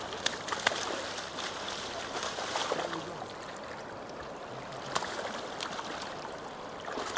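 Fast-flowing Kenai River water rushing steadily, with a few sharp clicks in the first second or so and another about five seconds in.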